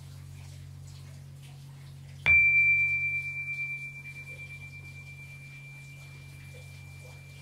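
Horizontal metal tubular gong struck once about two seconds in, ringing one clear high, pure tone that wavers slowly and fades gradually.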